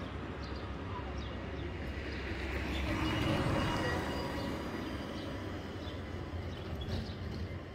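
Small electric utility cart passing close by, its tyre and motor noise swelling to a peak about three seconds in and then fading, over a steady low street rumble.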